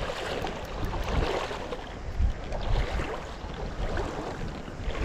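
Wind buffeting the microphone in uneven low gusts over the steady rush of river water.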